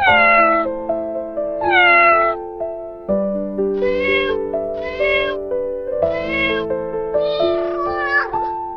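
Domestic cat meowing repeatedly, the first calls falling in pitch, over background music with held notes.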